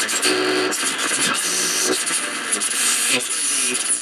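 RCA AR-77 shortwave receiver's loudspeaker giving out loud hiss and static, with garbled snatches of broadcast sound, as the dial is worked across the AM band.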